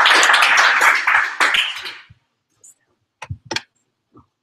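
A small audience applauding, the clapping dying away about two seconds in. A few short knocks follow near the end.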